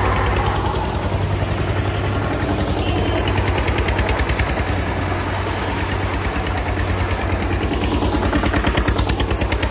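Eicher 242 tractor's diesel engine pulling hard under heavy load, with a rapid, even exhaust beat and a low drone throughout.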